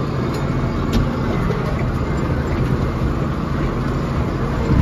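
Ford TW-series tractor's diesel engine running steadily under load while mowing hay, heard from inside the cab. There is a single sharp click about a second in.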